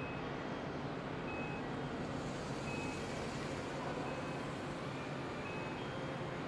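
Short electronic warning beeps repeat about once every one and a half seconds, the motion alarm of a shipyard crane moving a suspended steel hull block. Underneath is a steady rumble of machinery noise.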